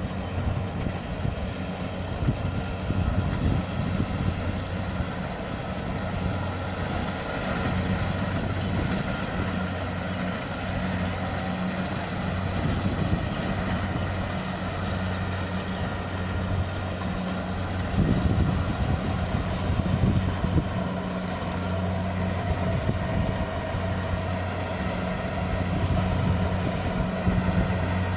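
Kubota DC-70 Plus combine harvester running steadily with a diesel engine hum while harvesting rice, with a stretch of louder, uneven knocking about two thirds of the way in.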